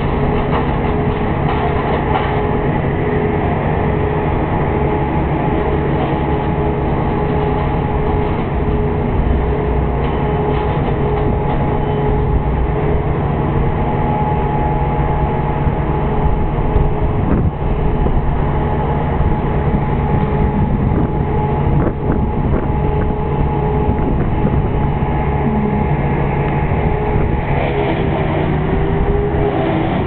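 A large engine running steadily with a low rumble, its pitch wavering briefly near the end.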